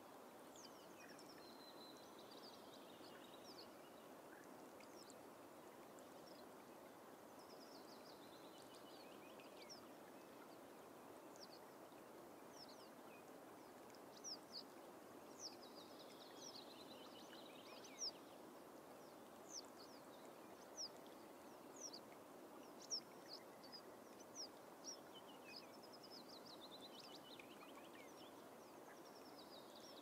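Faint birdsong over a steady low hiss: a high, falling song phrase repeated about every eight seconds, joined in the second half by a scatter of short, sharp chirps.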